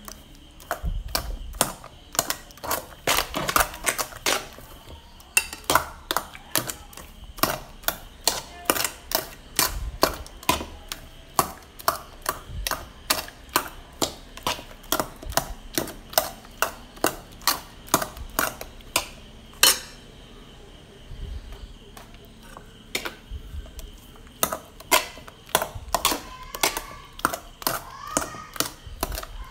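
Steel spoon mashing ripe bananas with sugar in a metal bowl, knocking against the bowl about two to three times a second, with a break of a few seconds past the middle.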